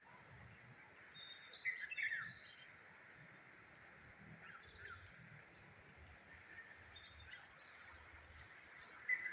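Bird calls over a faint steady hiss: a cluster of short chirps with falling sweeps, loudest about two seconds in, then a few weaker ones later.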